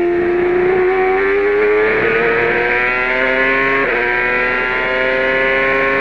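Toyota turbocharged V8 of a 2002 CART Champ Car accelerating hard out of a corner, its pitch climbing steadily. Upshifts come about two and four seconds in, each briefly dropping the pitch before it climbs again.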